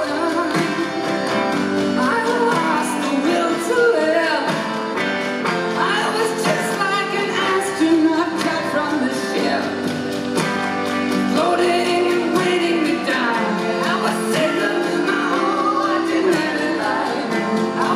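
Live rock band performance: a lead vocalist sings over electric guitar and drums, heard through the PA from within the crowd.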